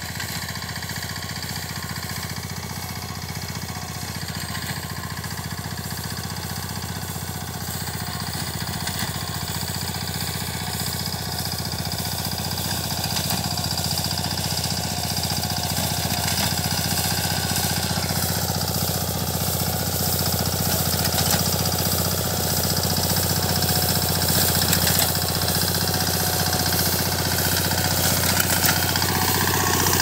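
BCS walk-behind reaper binder's engine running steadily as the machine cuts and binds wheat, growing louder as it comes closer. A high steady whine runs with it and dips slightly in pitch a little past halfway.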